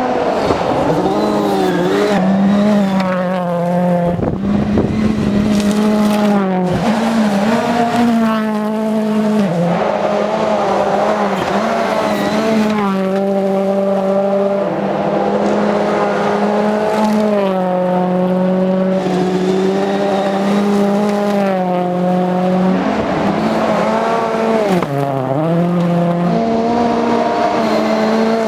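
Ford Fiesta rally car's engine driven hard, its pitch climbing and falling over and over and dropping in steps as it shifts through the gears.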